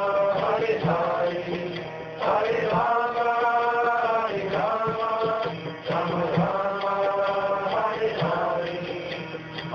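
Devotional chanting set to music: a voice sings a mantra in long held notes, phrase after phrase of about two seconds each, over a steady low drone.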